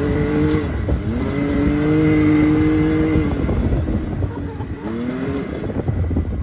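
Can-Am Maverick X3 side-by-side's engine pulling under throttle. Its pitch climbs and holds, drops about three seconds in as the throttle eases, then climbs again briefly near the end, over a low rumble.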